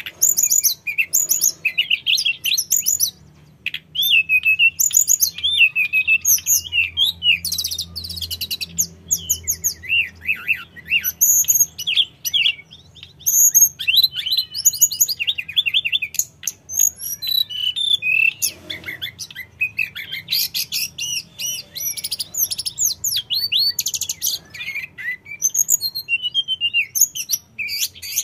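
Hill blue flycatcher singing a long, varied, high-pitched song of rapid whistled phrases and trills, with brief pauses.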